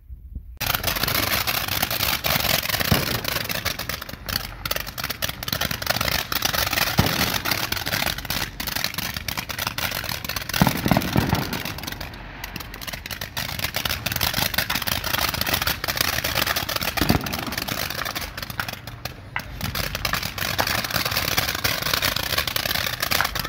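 Ground fountain firework spraying sparks: a loud, steady hiss with dense crackling that starts suddenly about half a second in.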